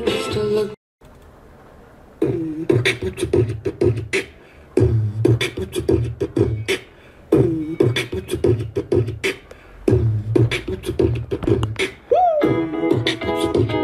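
Music with a wavering voice over a rhythmic beat, in phrases with short breaks between them. It cuts out briefly just under a second in and is quiet until about two seconds in.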